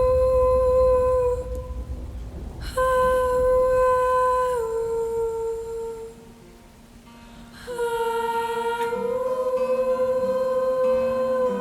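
Background music: a wordless passage of long, held single notes, with a quieter dip about six seconds in before the held notes return.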